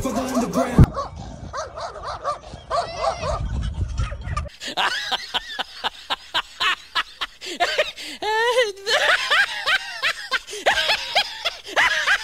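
Rapid high-pitched animal yelps and barks, many short calls one after another, coming thickest in the second half. A low rumble sits under the first few seconds.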